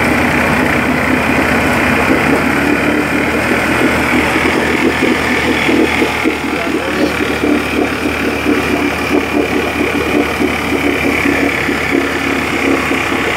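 Small outboard motor with its cowling off, running steadily during a test run, its propeller churning the water in a test drum.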